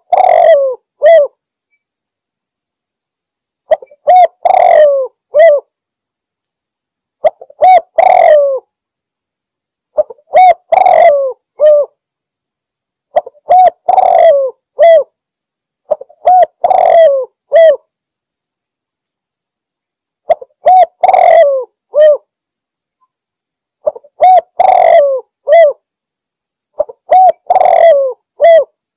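Spotted dove (tekukur) cooing a repeated challenge call to rival doves. The phrase comes about nine times, one every three to four seconds. Each phrase is a couple of short notes, a longer rolling coo and a short final note.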